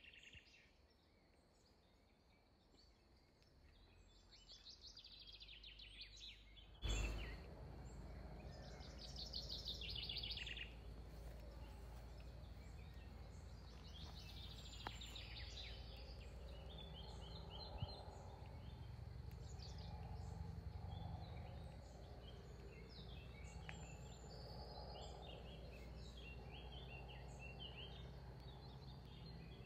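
Quiet garden ambience: several birds singing and chirping in short repeated trills over a steady low background noise. About seven seconds in there is a click, and the background noise is louder after it.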